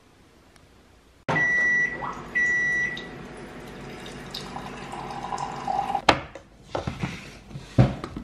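Two long electronic beeps from a kitchen appliance over a steady rushing noise, followed by a few sharp knocks of dishes being set down on a wooden board.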